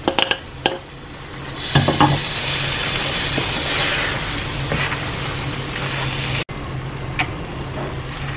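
Mashed vegetables and masala sizzling in a hot pan of butter while being stirred with a wooden spatula: a few clinks and scrapes at first, then a loud sizzle starts about a second and a half in as the vegetables go into the pan. The sizzle drops abruptly to a quieter level near the end.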